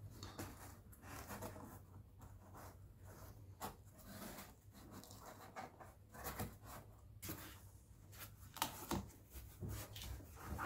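Faint rustling and rubbing of cardboard being handled and pressed into a curve by hand, with scattered light taps and scrapes.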